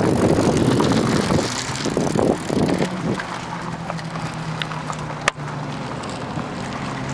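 A moving vehicle, with loud road and wind noise that eases off after about a second and a half. It settles into a steady low engine hum, and a single sharp click comes about five seconds in.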